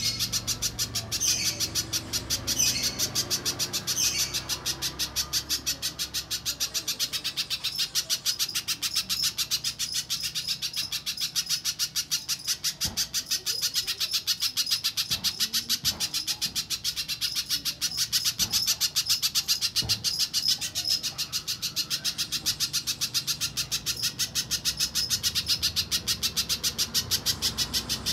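Little spiderhunter calling: a long, steady run of rapid, high-pitched chips, with a few separate calls in the first seconds.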